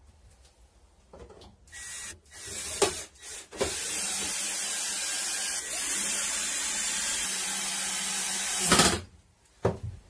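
Cordless drill-driver working into a sheet-metal panel: two short bursts, then one steady run of about five seconds that stops sharply. A single knock near the end.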